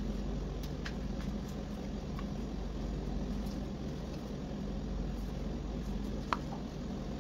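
Steady low mechanical hum, with a few faint ticks and one sharper click near the end.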